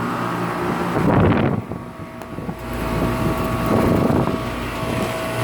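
Outdoor central air conditioner condenser units running: a steady electrical hum with a steady mid-pitched tone from the compressors and fans. There is a brief louder rush of noise about a second in.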